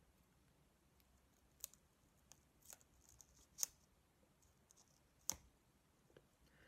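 A handful of small, sharp clicks from fine-nosed pliers and masking tape being picked off a model locomotive's body shell, the loudest a little past halfway and near the end.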